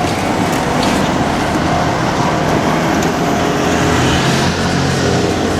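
Steady loud noise of passing vehicles, with a low engine-like hum coming in about four seconds in.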